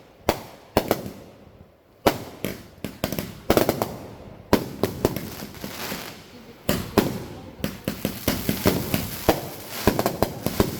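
Consumer fireworks going off: a barrage of sharp bangs and crackling reports, some single, many in quick volleys, with a brief lull about two seconds in before a denser run of bursts.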